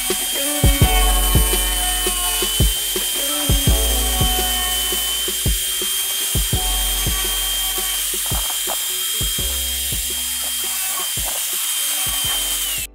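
Mini angle grinder running with a steady high whine, its disc cutting and trimming PVC pipe, with scattered short knocks as the disc catches the plastic. It cuts off suddenly near the end.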